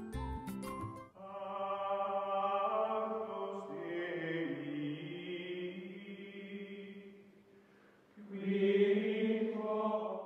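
Outro music: a choir of voices holding long chords, after a brief end of a beat-driven tune in the first second. The choir fades to almost nothing about seven seconds in, swells again about a second later, then cuts off suddenly.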